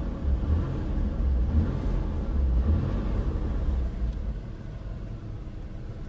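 2000 Ford Taurus V6 engine running, heard from inside the closed cabin as a steady low rumble that eases a little about four seconds in. With the front motor mount unhooked, the penny-like rattle in the dash is gone; the owner blames that mount's shifted bushings rubbing metal to metal.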